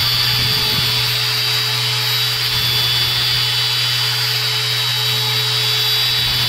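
Bosch random orbital sander running steadily with a fine sanding disc pressed against the steel of an axe head, sanding and polishing it.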